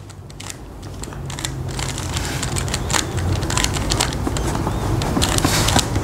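Plastic Rubik's cube being twisted in the hands: a fast, irregular run of clicks and clacks as its layers turn, over a low rumble.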